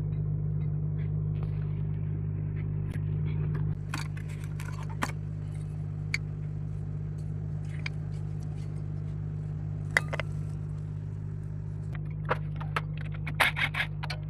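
Metal tools and brake parts clinking and tapping now and then, more often near the end, over a steady low hum.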